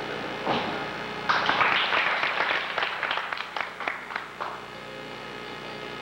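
A small group clapping for about three seconds, loud at first and then thinning out, after a single thump about half a second in from a gymnast landing a skill on a balance beam.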